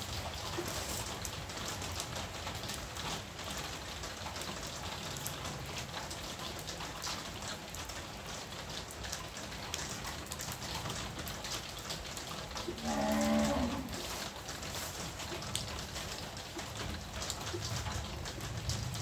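Steady rain pattering, with many small drop clicks. About two-thirds of the way through, a single drawn-out animal call lasts about a second.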